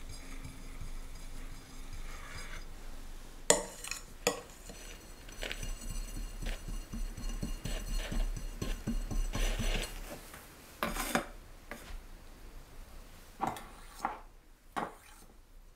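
Metal offset spatula scraping and smoothing soft chocolate buttercream on a cake, with a soft smearing sound. Several sharp clicks and taps are heard, plus a stretch of fast small ticks in the middle.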